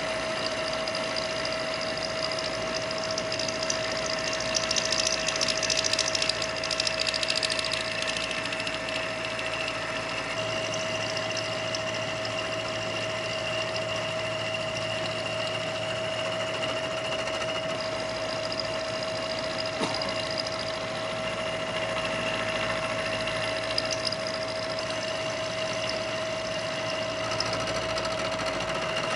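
Kearney & Trecker 2HL milling machine running with an end mill cutting metal: a steady machine whine with a higher cutting hiss that is strongest from about four to nine seconds in.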